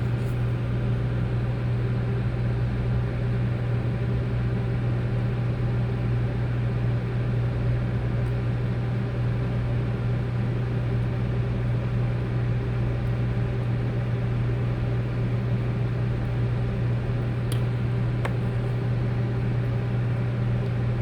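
Steady low electrical hum with fan-like noise from running bench equipment, with a couple of faint light clicks near the end.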